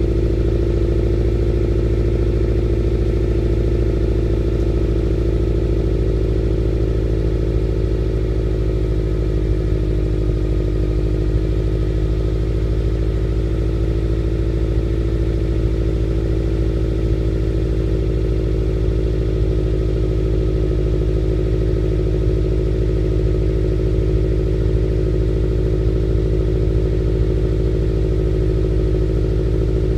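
2011 Subaru WRX hatchback's turbocharged flat-four idling steadily through a Nameless Performance 5-inch axleback muffler, shortly after a cold start in freezing air.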